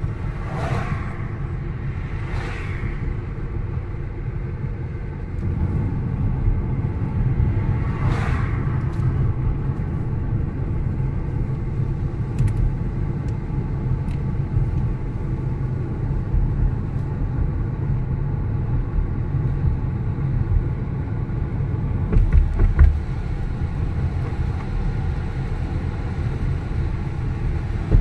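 Car driving, heard from inside the cabin: a steady low rumble of engine and tyre noise on the road, with a few heavier low thumps about 22 seconds in.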